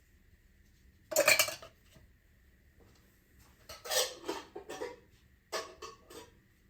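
Cookware and metal utensils clattering on the stovetop: a loud clank about a second in, then a run of clinks and knocks around four seconds and a few more near the end.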